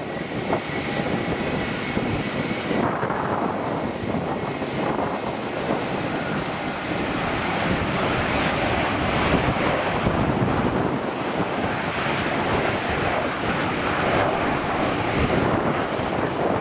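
Boeing 737-400 freighter's CFM56-3 jet engines during touchdown and landing rollout: a loud, steady jet rumble that grows a little louder about eight seconds in.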